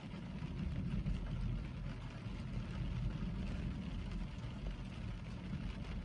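Rain falling on a car, heard from inside the cabin, with a heavy low rumble that swells in at the start and holds steady.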